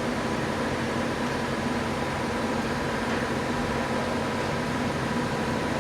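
Steady mechanical hum with a faint steady whine, unchanging throughout, from running workshop machinery such as a fan.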